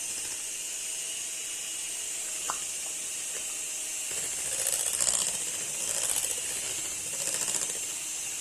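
Electric hand mixer running, beating cream cheese filling in a bowl. From about halfway through its sound rises and falls roughly once a second.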